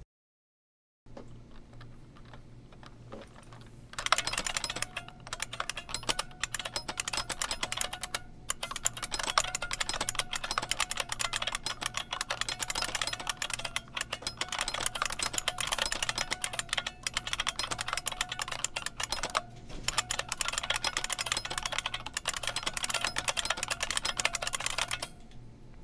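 Typing on a 1986 IBM Model M buckling-spring keyboard: fast, loud, clicky keystrokes that start about four seconds in and run with a few short pauses until near the end.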